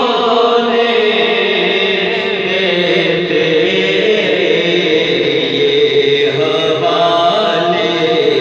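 A man singing an Urdu devotional kalam (naat) into a microphone, drawing out long, wavering held notes.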